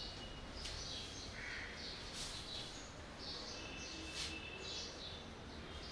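Faint birds chirping, short calls repeated a couple of times a second over a low steady background hum, with two faint clicks about two and four seconds in.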